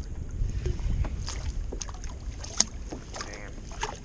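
A spinning reel being cranked in from a kayak: scattered small clicks and knocks over a steady low rumble of wind and water, with a sharp click a little past halfway and a brief squeak near the end.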